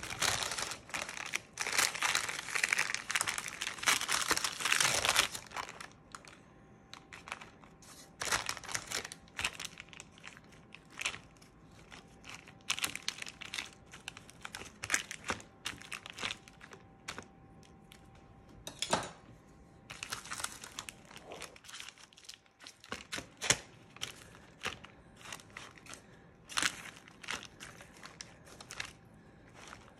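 Parchment paper crinkling and rustling under hands as a cream-spread sponge sheet is rolled up on it: a dense stretch of crinkling for about the first five seconds, then scattered crackles and rustles.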